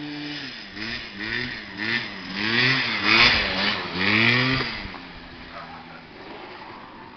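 Small scooter engine revved up and down in quick repeated throttle blips, about two a second, as the rider works the throttle to hold a wheelie. It is loudest as the scooter passes close, about three to four seconds in, then settles to a lower, steadier run.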